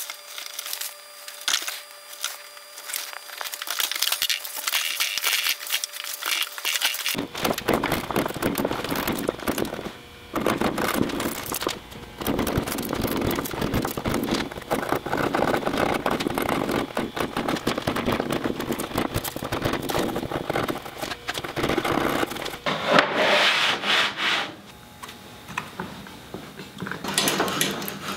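A hand chisel paring into a wooden post: scraping and crackling as the edge cuts the fibres and shavings lift, with many small sharp cracks.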